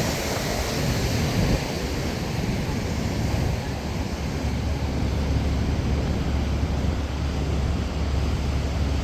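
Wind buffeting the microphone over the steady wash of ocean surf, the low rumble of the wind growing heavier a few seconds in.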